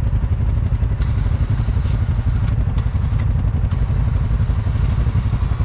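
Honda ATV engine idling steadily with a low rumble, with a few light clicks over it; a faint steady whine starts near the end.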